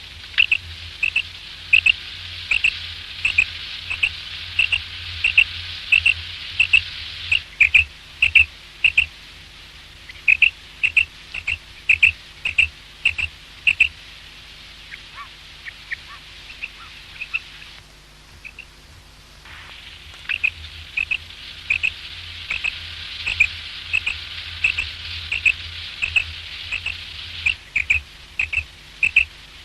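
Common quail calling: short, sharp high notes repeated about twice a second in long runs, over a steady hiss and low hum. The calls thin out and pause for a few seconds in the middle, then resume.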